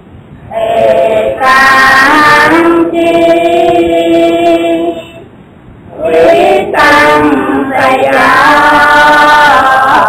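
Buddhist chant sung in long, drawn-out held notes with a wavering pitch, in two phrases with a short pause about halfway through.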